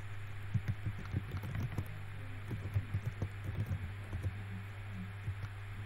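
Typing on a computer keyboard: quick, irregular key clicks, several a second, over a steady low mains hum.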